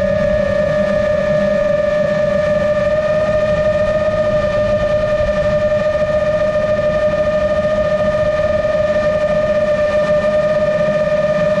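GepRC MOZ-7 7-inch long-range FPV quadcopter's motors and propellers whining steadily in cruise flight, one nearly constant pitch with a dense low rumble under it.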